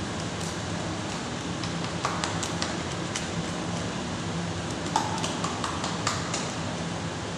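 Hands patting and pressing a 60×60 floor tile down into fresh mortar: a scatter of short, sharp taps and clicks, the loudest about five seconds in, over a steady low background hum.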